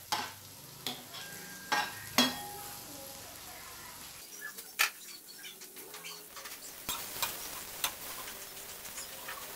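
Chopped garlic and spring onion frying in oil in a thin metal wok with a light sizzle, broken by several sharp taps and scrapes of a spatula against the wok as it is stirred.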